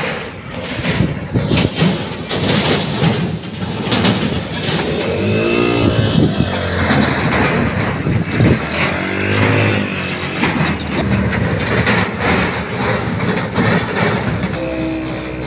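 Motor vehicle engine running, revving up and easing off twice in the middle of the stretch.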